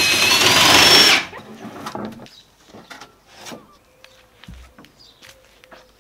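Cordless drill driving a screw into timber: the motor whines for about a second, rising slightly in pitch, then stops suddenly. Faint light knocks follow.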